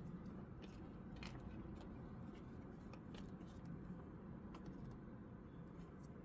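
Faint scattered clicks and light rustles of a trading card being slid into a plastic card sleeve and handled.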